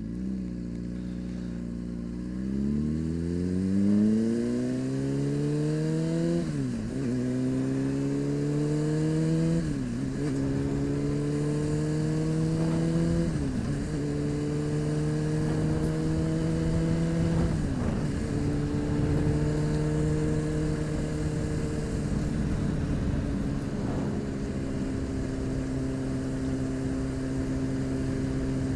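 Honda CBR600RR inline-four engine accelerating away from a stop, the revs rising through the gears with four quick upshifts, then holding a steady cruising note, with wind rushing past.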